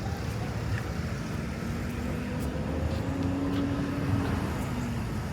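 Road traffic passing: a steady rumble of cars, with one vehicle's engine note held for a couple of seconds in the middle.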